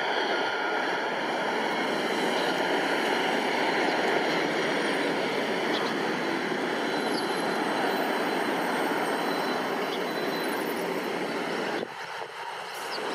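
Airbus A321-200 jet engines making a steady roar as the airliner passes low overhead with its gear down on final approach and flies away, with a faint high engine whine over the roar. The sound drops abruptly about twelve seconds in.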